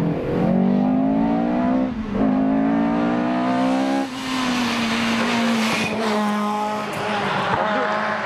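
Rally car engines at full throttle. One accelerates with a rising note, with a gear change about two seconds in and a second rise after it. About four seconds in the note changes and then holds steadier.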